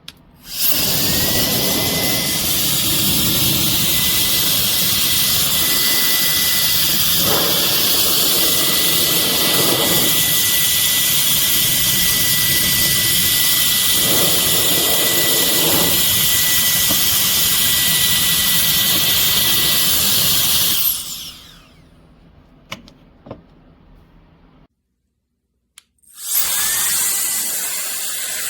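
Cordless electric air duster's high-speed fan motor spinning up with a rising whine that settles into a steady high tone over a rush of air. It runs for about twenty seconds, then winds down with a falling whine. After a few small clicks and a short gap it spins up again near the end.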